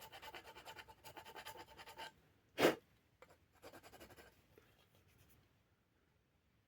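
Quick, even strokes of a file over the end grain of a wooden axe handle and its wedge, smoothing off the ragged bandsaw cut where they were trimmed flush. A single sharp knock comes about two and a half seconds in, followed by a few fainter strokes.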